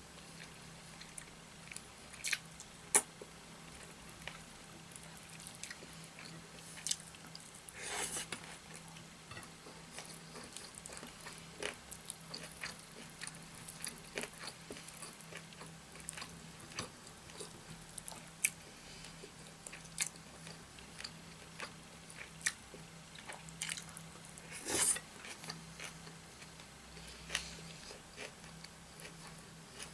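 Close-miked eating by hand: wet chewing and lip smacks of rice and curry, with scattered sharp clicks and a few louder smacks.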